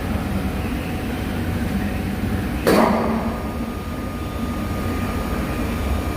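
A steady low machine hum, with one sharp knock about two and a half seconds in.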